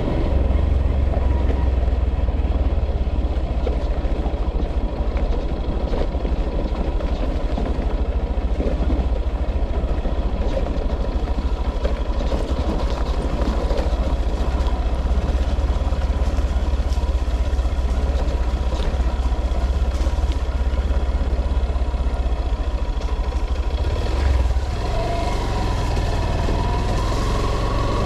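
A motor vehicle's engine running steadily on the move, with a deep rumble throughout. A tone rises in pitch over the last few seconds as it speeds up.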